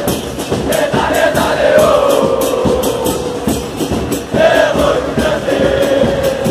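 Large crowd of football supporters singing a chant in unison to a steady drum beat, about three beats a second.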